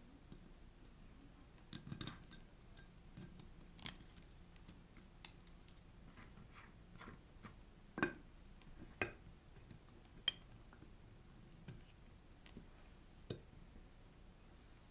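Scattered small clicks and taps of fingers handling a trigger magnet and card shim inside a Lambretta electronic-ignition flywheel, metal parts knocking lightly against each other; the sharpest clicks come a little past the middle.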